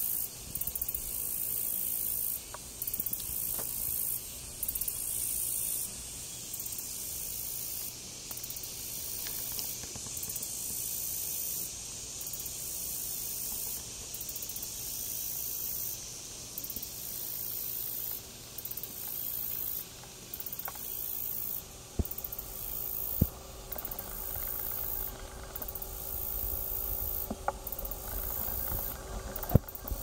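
A high-pitched outdoor insect chorus, a steady hiss that cuts out briefly every second or two. A low rumble comes in about two-thirds of the way through, with a couple of faint clicks near the end.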